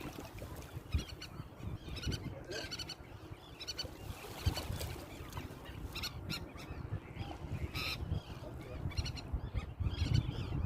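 A flock of migratory shorebirds calling: many short chirping calls, repeated and overlapping, over a steady low rumble in the background.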